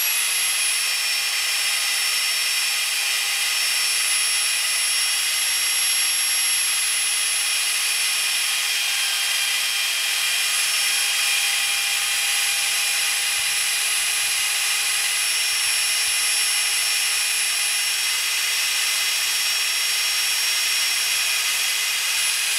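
FE50 magnetic drill running steadily in its first (slowest) speed, its 18 mm high-speed-steel bit boring through 30 mm thick steel plate. The motor gives a steady high whine with several fixed tones over a constant hiss.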